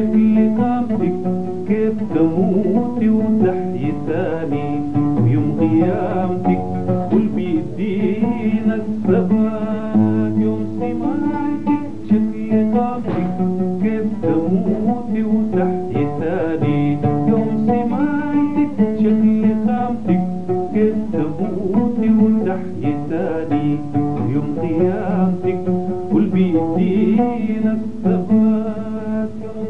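Oud playing an instrumental passage of quick plucked melodic runs.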